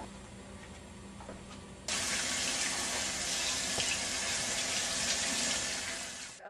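Bathroom sink faucet running, with water splashing into the basin as hands are washed under it. It starts suddenly about two seconds in, holds steady, and fades out near the end. Before it there is only quiet room tone with a low hum.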